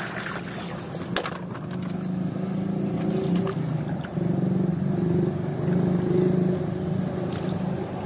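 Small boat motor running with a steady hum. Water splashes near the start as a hand grabs something from the water.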